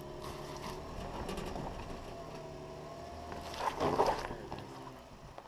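Jeep Rubicon's engine running at low revs while crawling over a rocky trail, with scattered clicks and crunches of stones under the tyres. A louder grinding crunch comes about four seconds in.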